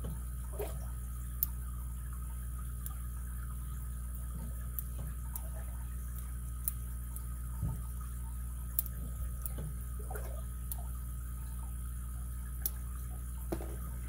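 Lock pick and tension wrench single-pin picking a Best interchangeable-core padlock: sparse, irregular faint metal clicks, roughly one a second, as pins are set, over a steady background hum.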